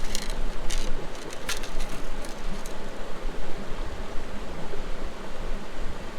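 Creek water rushing steadily, with a few short sharp clicks in the first three seconds.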